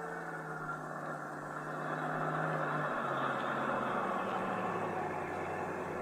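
Radio-drama sound effect of a bus engine running and slowing, its low hum stepping down in pitch twice, while a music bridge fades out at the start.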